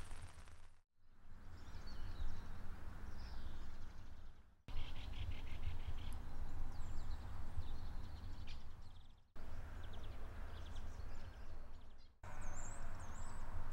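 Wind rumbling on the microphone, with small birds chirping and whistling now and then. The sound drops out abruptly four times.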